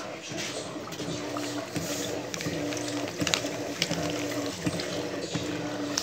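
Electrolux Turbo LT12F top-loading washing machine agitating a load in water: the motor hums in short repeated strokes, about one a second, as the agitator swings back and forth, with water sloshing in the drum.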